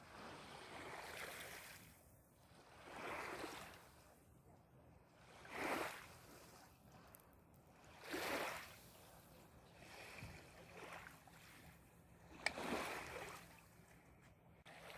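Small Lake Superior waves washing onto the shore: a soft rush of water that swells and fades about every two and a half seconds.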